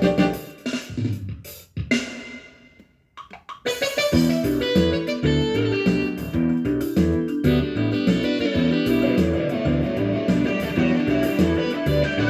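Background music led by guitar. It fades out early on, goes almost silent for about a second, then starts again at full level and plays on steadily.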